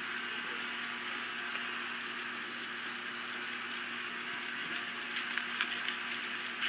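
Steady hiss with a faint hum, then a few short clicks or taps in the last couple of seconds.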